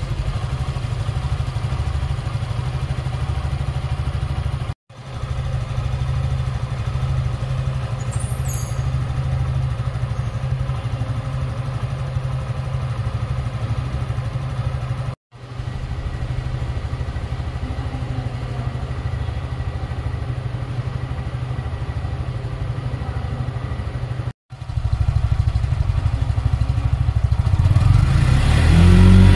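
Suzuki Gixxer 150's single-cylinder engine idling steadily, with a few brief dropouts where the recording is cut. Near the end it is revved, its pitch rising.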